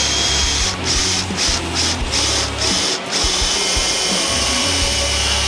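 Cordless drill with a countersink bit boring into a wooden board. The motor whine cuts in and out several times in the first few seconds, then runs steadily.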